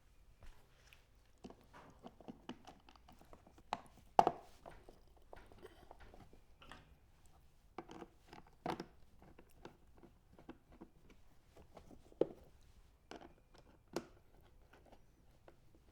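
Irregular light clicks, taps and knocks of small engine parts and hand tools being handled while an inverter generator is put back together, with one sharper knock about four seconds in and a few more near the middle and toward the end.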